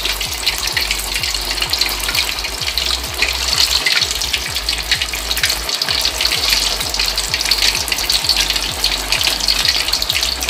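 Boiled pempek (sago-flour cakes) deep-frying in hot oil in a wok: a steady sizzle full of fine crackles.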